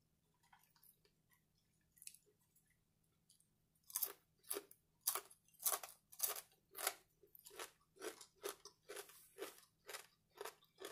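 Close-up crunchy chewing of crispy bacon: sharp crunches about twice a second, starting about four seconds in after a few faint clicks.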